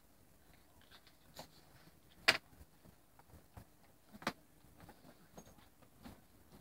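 Two small dogs play-fighting: faint scuffling with a few short sharp clicks, the loudest about two seconds in and another about four seconds in.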